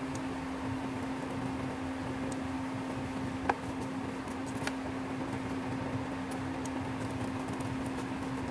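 Steady hum of a fan with one steady tone in it, over which spatulas tap and scrape against a frying pan while folding a tortilla wrap, giving a few sharp clicks, the loudest about three and a half seconds in.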